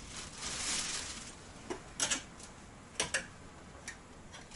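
Clothes rustling, then a few sharp clicks of clothes hangers knocking against the hanging rail as garments are hung up and taken down.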